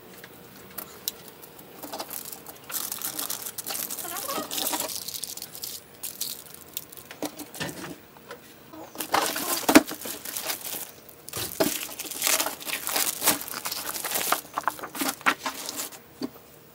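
Aluminium foil crinkling and rustling in crackly spells as it is folded and pressed around a row of snap-pop noisemakers, with a few sharp taps, the loudest near the middle.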